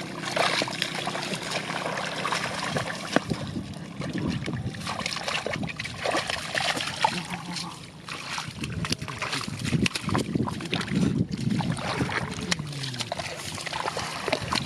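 Shallow muddy water splashing and sloshing in irregular bursts, with scattered sharp clicks, as people wade and grab for fish by hand.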